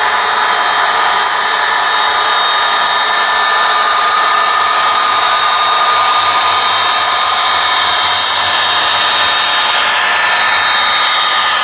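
HO scale model diesel locomotives running toward the camera at the head of a train: a steady whirring of motors and gears with wheels rolling on the rails, and a high whine over it.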